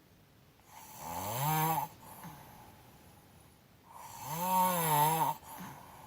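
A person snoring with the mouth open: two snores about three seconds apart, each lasting a little over a second, swelling in loudness with a wavering pitch and a breathy hiss before cutting off sharply.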